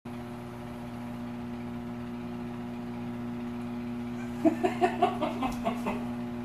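A man's short burst of laughter, about eight quick pitched pulses starting about four and a half seconds in and lasting a second and a half, over a steady electrical hum.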